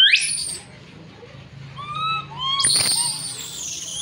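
Baby macaque crying in fear: short rising coos that break into shrill screams, one at the start and a longer one about two and a half seconds in.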